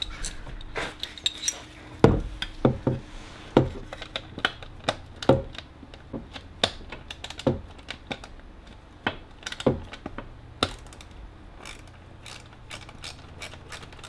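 Ratchet wrench clicking in irregular spells, with sharp metal clicks and clacks, as a stubborn fastener is worked loose.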